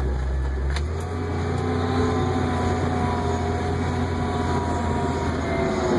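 Heavy earthmoving machine's engine running steadily, heard from inside its cab, a deep drone with a faint whine over it; the low hum shifts about a second in.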